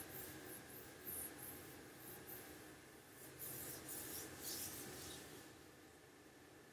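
Faint scratchy rubbing at the desk: a few short brushes, then a longer stretch of scratching from about three and a half seconds in that dies away before the end.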